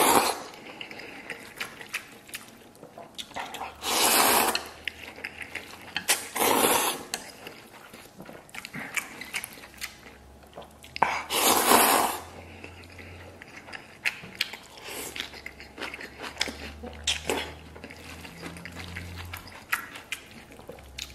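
A man slurping up mouthfuls of noodles in four long sucking rushes a few seconds apart, with wet chewing and small clicks in between.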